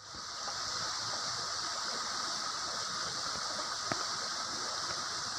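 Shallow, rocky river running fast over stones in a steady rush. A single sharp click comes about four seconds in.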